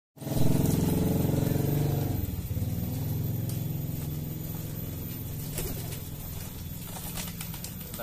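A motor vehicle engine running close by, loudest for the first two seconds, then slowly fading. A few faint sharp flutters of pigeon wings come in the later seconds.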